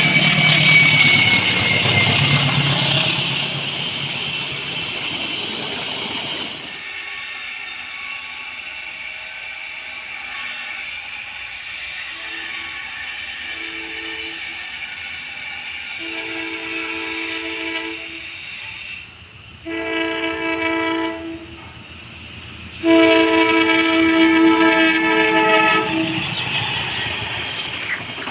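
A train passing close with a loud rumble of wheels on rail, which breaks off abruptly about seven seconds in. Then a locomotive's two-tone horn sounds the Semboyan 35 signal: two faint short toots, then three longer blasts, the last about three seconds long and the loudest.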